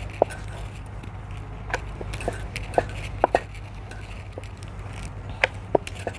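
Wooden rolling pin rolling out dough on a metal plate, with about ten short, sharp taps and clicks as the pin knocks against the plate, over a steady low hum.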